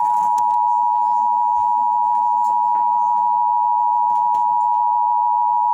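Emergency Alert System attention tone from NOAA Weather Radio: a single steady, unbroken tone, sounding just after the digital alert header and ahead of a spoken severe thunderstorm warning.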